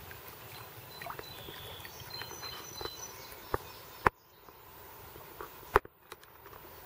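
Quiet outdoor ambience by shallow water, with a few faint high chirps in the first three seconds. Two sharp clicks come about four and six seconds in, each followed by a brief dip in the background.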